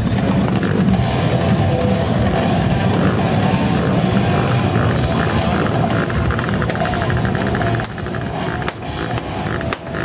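Loud live rock music with drum kit and electric guitar, dipping briefly a few times near the end.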